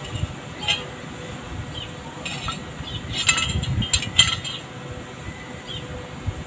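A metal disc and a short stainless steel pipe section clinking and tapping together as the disc is fitted inside the pipe. There are a few sharp clinks, the loudest clustered between about three and four and a half seconds in.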